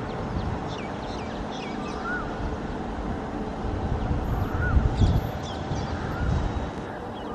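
Birds calling: a short rising-and-falling whistled call repeats about every two seconds, with a few quick higher chirps, over a low rumble of wind and distant noise that peaks about halfway through.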